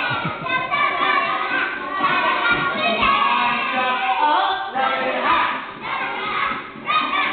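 A group of children singing and shouting along to music, as for an action song.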